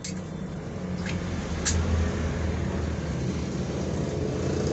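Steady low motor-like hum that grows gradually louder, with three short sharp clicks near the start.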